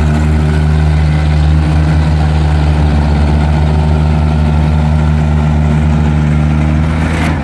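Kubota combine harvester's diesel engine running steadily under load while pulling stuck rice carts out of the mud.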